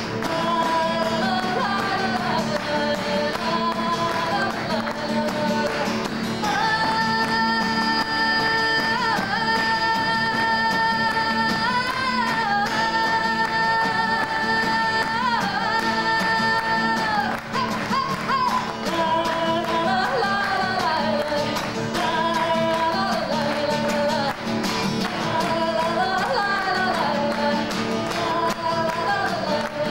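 A woman singing a melody to her own strummed acoustic guitar, heard as room sound from a hall PA. Through the middle she holds several long, sustained notes before returning to a moving melody.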